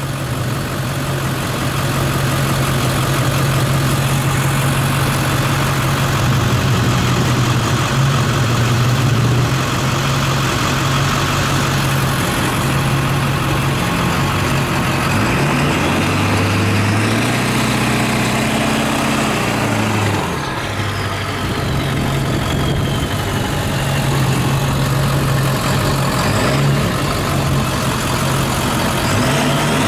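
Pickup truck engine idling steadily, its pitch rising and falling briefly about halfway through.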